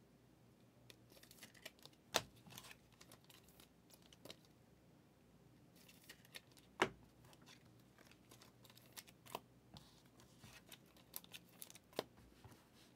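Faint rustling and crinkling of trading cards and pack wrappers being handled, with scattered sharp clicks; the loudest clicks come about two seconds in and again near seven seconds.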